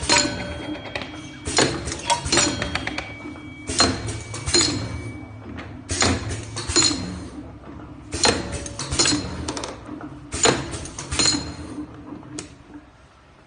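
Egg tart forming machine at work: groups of sharp metallic clinks with short ringing tones, repeating about every two seconds over a low hum, and dying away near the end.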